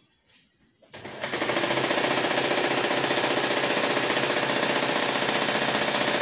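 Electric sewing machine stitching at a fast, steady speed, the needle running in a rapid even rhythm. It starts up about a second in and runs without a break.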